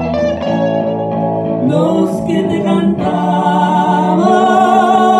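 Man singing with a hollow-body electric guitar: guitar notes first, then about two seconds in his voice comes in with long held notes with vibrato over the guitar.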